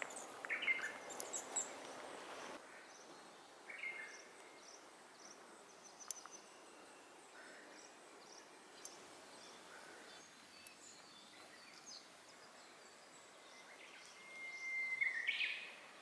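Wild birds chirping and calling sparsely over a faint steady hiss of open air. One louder, longer call comes about a second before the end: a held note that breaks upward.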